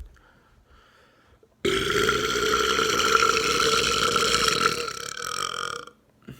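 A man's long, loud burp of about four seconds, starting suddenly about a second and a half in and trailing off at the end. It is a belch brought on by deliberately swallowing air.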